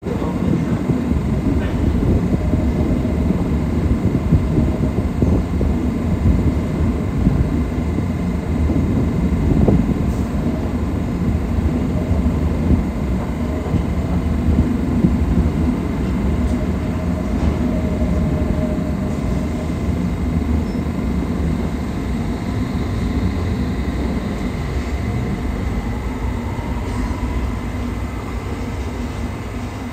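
London Underground S8 stock train running on into the tunnel: a steady low rumble of wheels on rail that slowly fades, with a faint rising whine near the end.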